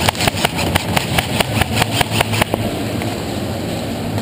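Quick, even clatter of running footsteps and jostling gear heard through a body-worn action camera, about six or seven knocks a second, stopping about two and a half seconds in; a low steady hum underneath.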